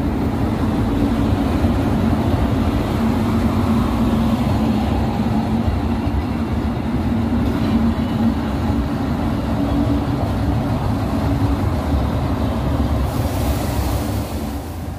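Passenger train coaches rolling slowly past along the platform: a steady rumble with a low, even hum.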